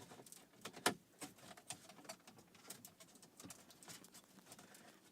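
Faint clicks and light knocks of a plastic dashboard trim panel being handled and worked free by hand, with one sharper click about a second in.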